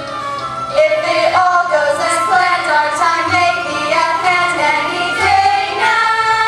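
Young cast singing a musical number with accompaniment, the voices holding one long note from about six seconds in.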